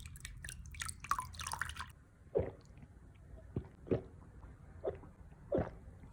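Water splashing and crackling for about two seconds, then single drops falling into water, five separate plops spaced unevenly.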